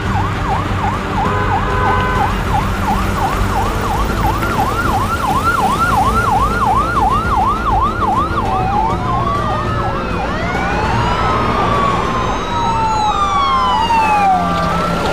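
Police vehicle sirens: a fast yelp of about three sweeps a second, changing about eight seconds in to slower wailing sweeps from several sirens overlapping.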